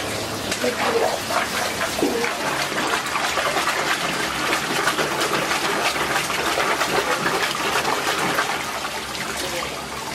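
Water gushing and splashing as a mesh basket of freshly boiled udon noodles is worked by hand in a sink of water, rinsing the noodles.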